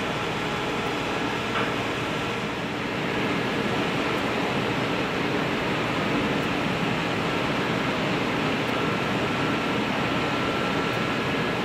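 Steady drone of a moored training ship's engines and onboard machinery running, with a faint steady high tone through it.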